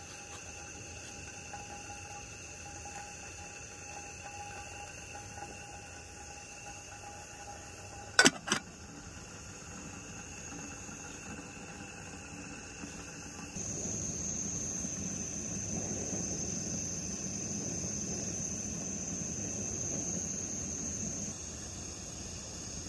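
Crickets and other insects chirping steadily. About eight seconds in come two sharp metallic clicks, the lid of the aluminium camping kettle being set on. From about halfway, a higher insect trill grows louder over a low rushing noise.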